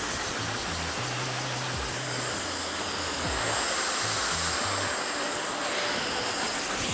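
Handheld hair dryer blowing steadily as it is worked over the hair, getting a little louder a few seconds in, with a faint high whine. Background music with a low bass line plays underneath.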